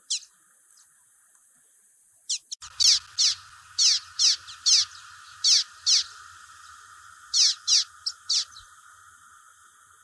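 Common waxbill (bico-de-lacre) singing: a run of about a dozen sharp, high notes that each sweep steeply downward, roughly two a second. The run starts a couple of seconds in and stops shortly before the end, over a steady faint background hiss.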